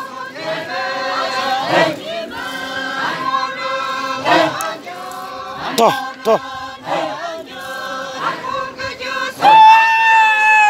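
A group of voices chanting a folk dance song in unison, in held, pitched notes. Near the end one high call rings out loudly, held level, and then starts to slide down in pitch.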